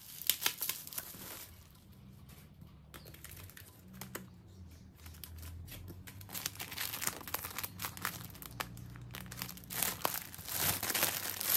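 Bubble wrap and plastic packaging crinkling and crackling as it is unwrapped and handled. It comes in spurts: busy in the first second or so, quieter for a few seconds, then again more and more toward the end.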